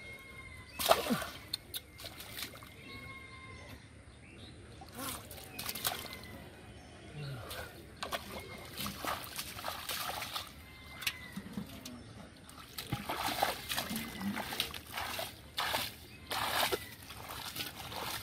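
Shallow muddy water splashing and sloshing irregularly as live catfish are handled and put into a pot of water and bare feet and hands work through mud and wet plant debris.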